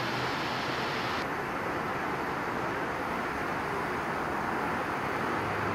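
Steady rushing noise with a faint low hum on a police radio audio feed between transmissions; the highest hiss drops away about a second in.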